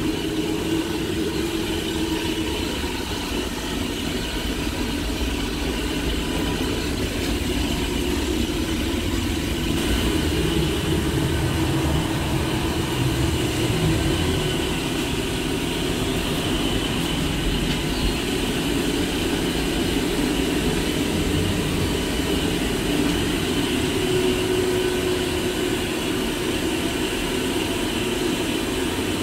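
Trolleybus (TrolZa-62052.02) running, heard from inside: a steady low rumble with a few faint steady tones above it, swelling slightly about a third of the way through.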